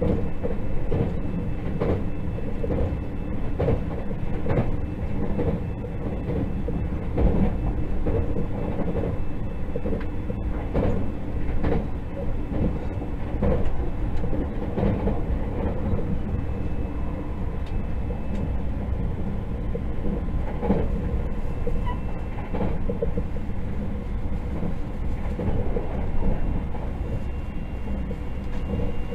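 A JR 681 / Hokuetsu Express 683-8000 series limited-express electric train running, heard from inside the passenger car. A steady rumble of the wheels on the rails runs throughout, with frequent irregular knocks.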